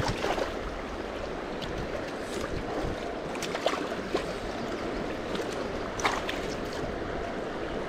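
River water running steadily over a shallow, rocky trout-stream bed, with a few brief sharp sounds rising above it.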